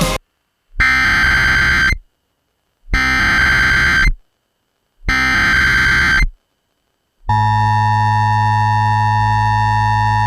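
Emergency Alert System SAME header: three short bursts of digital data tones, each about a second long with about a second of silence between them. About seven seconds in, the steady EAS attention tone follows, signalling that an emergency warning is about to be read.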